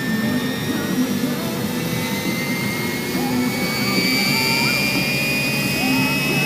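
Scale RC model helicopter running, a steady high whine that slowly rises in pitch and grows a little louder about two-thirds of the way through.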